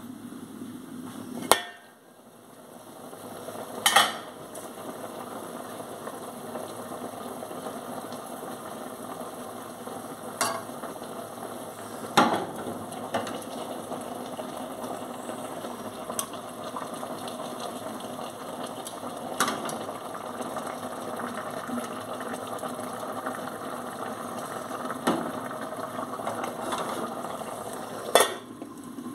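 Food sizzling as it fries in a pan: a steady hiss that picks up about two seconds in, with sharp metallic clinks of utensils or dishes now and then.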